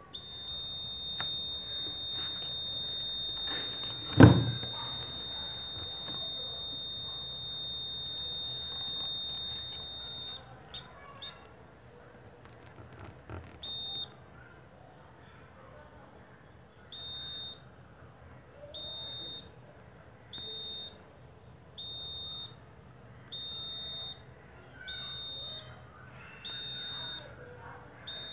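Laser tripwire alarm's electronic buzzer sounding a steady high-pitched tone for about ten seconds, with one loud thump about four seconds in. After a few short blips comes a run of short beeps about every second and a half: the buzzer sounds each time a hand breaks the laser beam falling on the light-dependent resistor.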